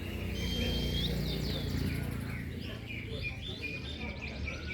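Several domestic canaries singing at once, overlapping chirps, trills and whistled notes as they compete, over a low background rumble.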